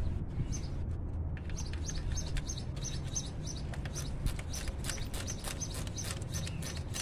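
A small bird chirping over and over, about three short, high chirps a second, over a low steady hum.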